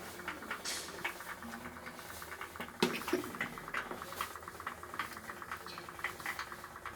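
Toy pop-pop steam boat running: a fast, even ticking with scattered small clicks, and one louder knock about three seconds in.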